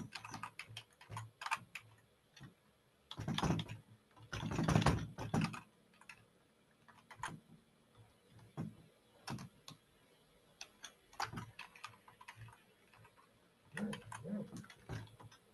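Typing on a computer keyboard: scattered key clicks, with denser, louder runs of keystrokes about three and five seconds in and again near the end.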